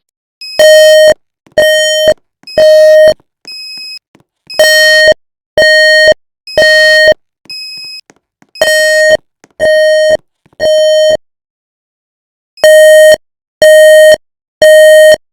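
Building fire alarm sounding its evacuation tone: loud half-second beeps in groups of three, the temporal-three pattern, repeated four times with short pauses. A fainter, higher single beep falls between some of the groups.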